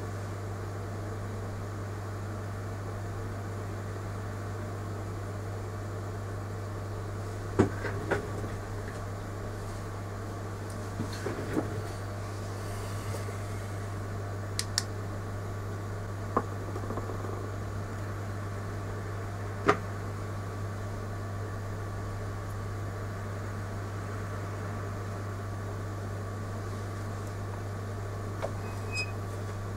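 A steady low hum, with a handful of short, sharp clicks and taps scattered through it, like small tools set down or knocked on a bench.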